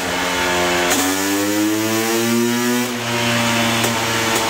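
Honda CR500 two-stroke single-cylinder engine running hard on a chassis dyno through an FMF Gnarly pipe and PowerCore 2 silencer, with a raspy two-stroke note. About a second in the pitch dips, then climbs steadily for about two seconds as the revs rise during a dyno pull, before levelling off.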